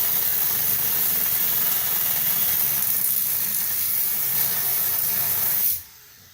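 Angle grinder with a 6-inch cutoff wheel grinding through a rusted-in leaf spring bolt, a steady bright grinding noise that cuts off suddenly near the end.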